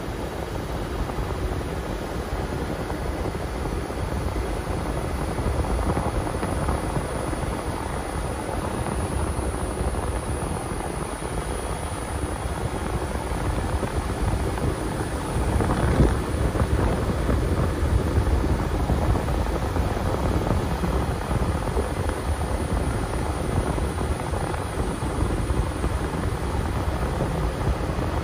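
Steady road noise inside a moving car's cabin: tyres rumbling on rough, cracked asphalt over the engine. There is a single thump a little past halfway through.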